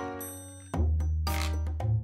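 Background music: an upbeat tune with a bass line and a light percussive beat. A held chord fades over the first half second or so before the bass and beat come back in.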